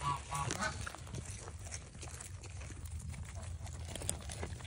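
Goats eating popcorn from a plastic crate: crunching and rustling of popped corn as they nose and chew through it, with a couple of short calls in the first half-second.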